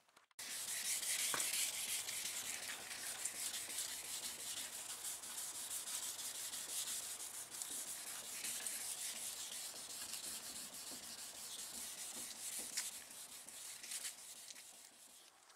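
Hand sanding with 2000-grit sandpaper on a sanding block, rubbed back and forth over a car door's painted top edge as the first step before compounding and buffing. A steady, fine scrubbing hiss that starts about half a second in and fades out near the end.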